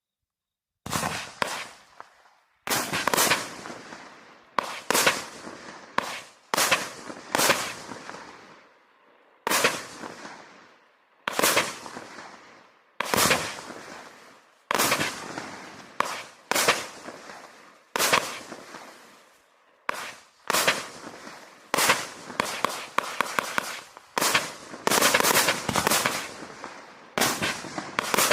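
Vivid Pyrotechnics Havoc firework going off about a second in: a long run of loud bangs, roughly one every one to two seconds, each trailing off before the next, with quicker rattling clusters of reports in places.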